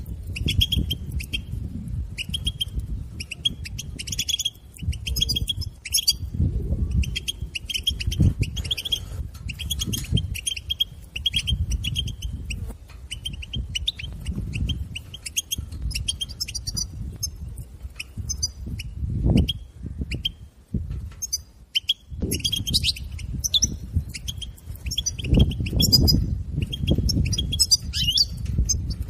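European goldfinch twittering ('batbata'): quick runs of short chirps and trills in bursts, the excited chatter played to stimulate a goldfinch to sing. It thins out for a couple of seconds about two thirds through, and a low rumble runs underneath.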